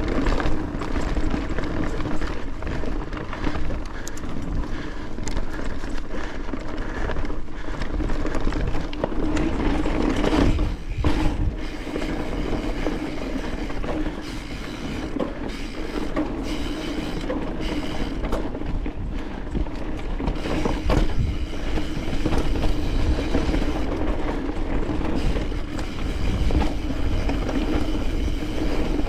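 Mountain bike rolling over a rocky dirt trail: continuous tyre noise and the bike's mechanical clatter and rattling over the bumps.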